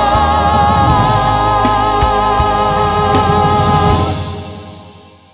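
Final bars of a recorded devotional hymn: a held sung note with vibrato over a sustained band chord, then the chord rings on, punctuated by a few drum beats. From about four seconds in, the music fades out.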